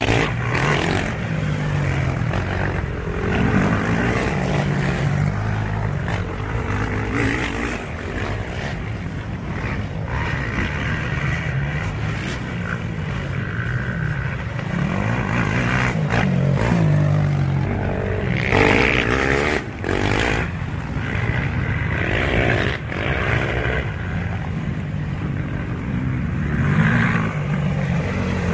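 Quad bike engines revving up and down as the ATVs race over a dirt track, the pitch rising and falling again and again.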